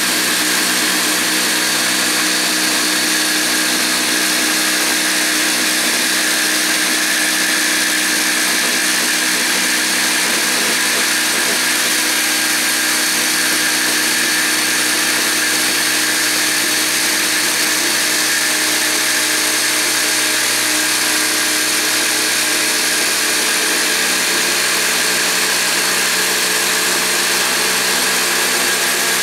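Festool Carvex 420 jigsaw running steadily as it cuts a curve through 42 mm thick timber, the blade set to zero pendulum so it strokes straight up and down.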